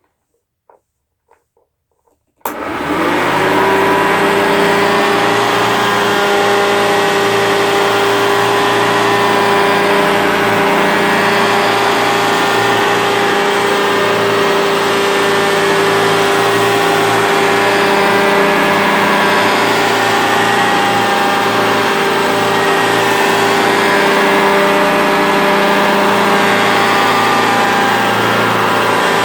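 Refurbished Hoover Junior upright vacuum cleaner switched on about two and a half seconds in, its motor spinning up quickly and then running steadily.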